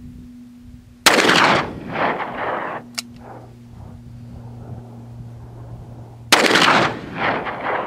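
Two shots from a Taurus Raging Bull .44 Magnum revolver with a 6.5-inch barrel, firing Federal Premium 300-grain CastCore loads, about five seconds apart. Each shot is followed by echoes that die away over a second or more, and a single sharp click sounds between them.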